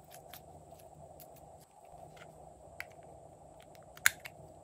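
Light, scattered clicks and taps of hands handling slime and small plastic slime tubs, with one sharp plastic click about four seconds in as a tub is handled.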